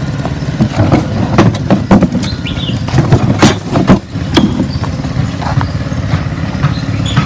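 Small petrol engine of a Hako Sweepmaster P800 walk-behind sweeper running steadily, with several sharp knocks and clatters as its plastic debris hoppers are pulled out.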